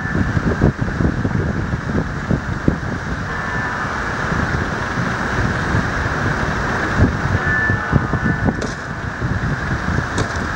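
Wind buffeting the microphone in irregular low thumps over a steady outdoor rumble of city and river traffic.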